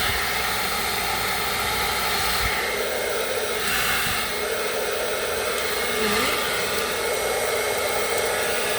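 Berta hair dryer running steadily on its cold setting, blasting air with an even rushing noise.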